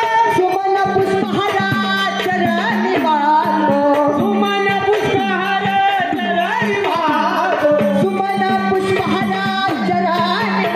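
A voice singing a melody to tabla accompaniment, with drum strokes throughout and a steady low held note underneath.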